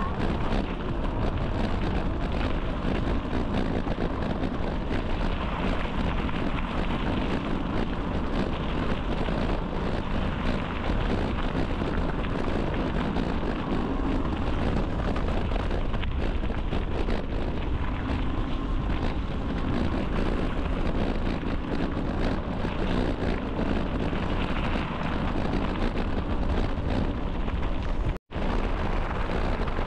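Steady wind noise rushing over the microphone of a camera on a moving bicycle. The sound cuts out for a split second near the end.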